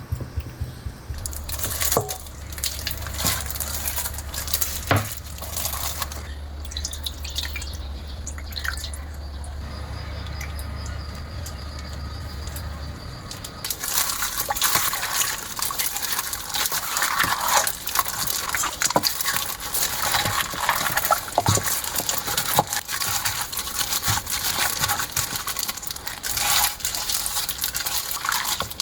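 Water running and splashing with small knocks of handling, busier and louder from about halfway; a low steady hum lies under the first half.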